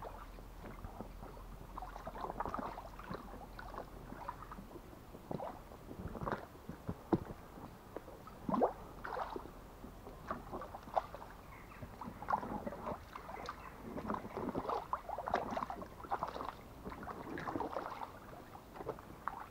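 Wellington boots wading through shallow brook water, giving irregular sloshing splashes that come more often in the second half.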